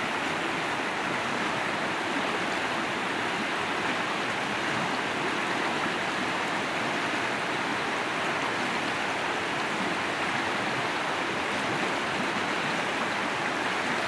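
Fast-flowing, swollen river rushing past the bank: a steady, unchanging sound of running water.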